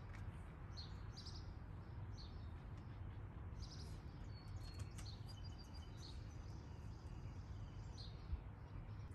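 Faint, scattered bird chirps over a low steady rumble of outdoor ambience.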